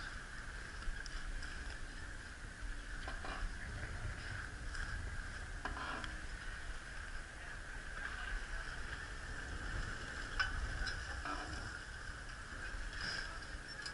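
Steady running noise aboard a fishing boat at sea: a low rumble under a steady high hum, with a few light clicks and knocks scattered through.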